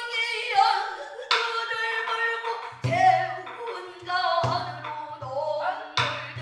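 Pansori singing: a woman's voice holding long, wavering notes, accompanied by a buk barrel drum struck about every second and a half.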